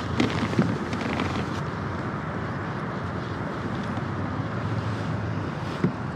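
Steady wind noise on the microphone, with a few light clicks in the first second or so and a single knock near the end.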